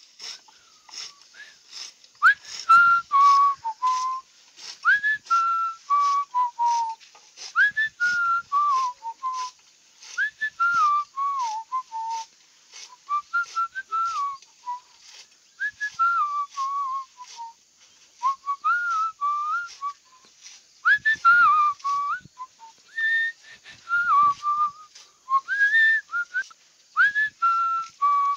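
Someone whistling a wandering tune in short phrases, over crisp chopping clicks at about two a second from a hand-lever fodder cutter slicing grass.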